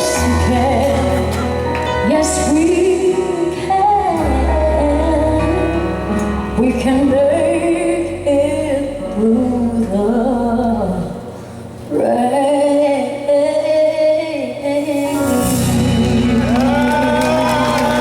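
Female vocalist singing a slow pop ballad over a live band, with long held notes that bend and slide; the backing drops away briefly about two-thirds of the way through, then comes back.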